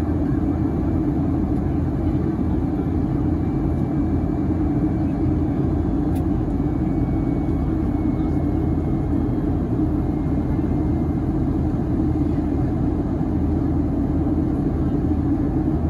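Steady cabin noise inside a Boeing 757-300 in flight, heard from a window seat beside the engine: a constant low rumble of the engine and the airflow over the fuselage, at an even level.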